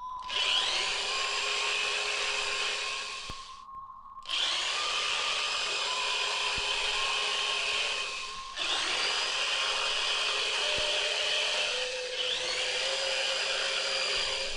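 A handheld power tool running against wood, in three long runs with short breaks, several starting with a rising whine as the motor spins up.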